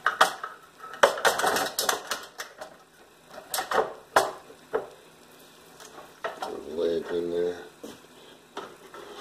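Hard plastic and metal clatter and knocks from a NuWave countertop oven's parts being handled and its extender ring set back in place: a dense run of clacks early on, then a few separate knocks.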